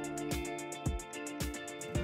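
Background music with a steady beat: a kick drum about twice a second under sustained instrumental notes.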